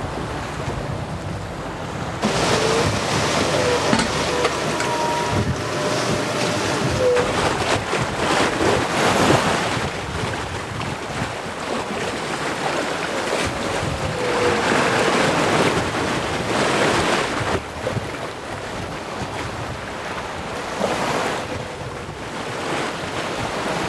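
Rough sea breaking and rushing along the side of a sailboat under way in a strong breeze, with wind buffeting the microphone. The rush of water swells and eases in surges every few seconds.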